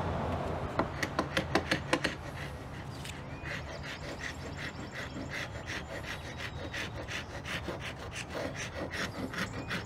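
Hand pull scraper dragged in quick repeated strokes across an old wooden bench top, scraping off crusted paint and oily crud. The strokes are louder for about the first two seconds, then lighter and steadier.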